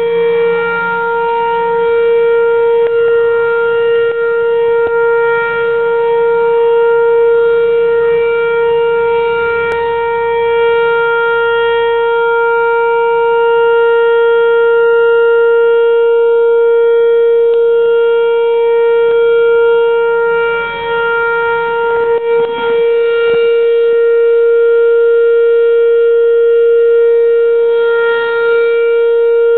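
Whelen Vortex-R electronic outdoor warning siren sounding a steady tone at one fixed pitch, with no rise and fall: the steady alert signal of a tornado siren. It dips slightly in loudness a couple of times about two-thirds of the way through.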